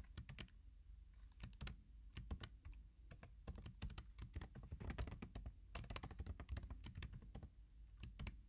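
Computer keyboard typing: quick, irregular key clicks in short runs with brief pauses between them, fairly quiet.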